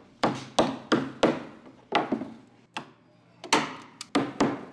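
Hammer driving U-shaped staples into a plywood frame to fasten chicken wire: a run of sharp strikes, roughly two a second, each ringing briefly, with a short pause about three seconds in.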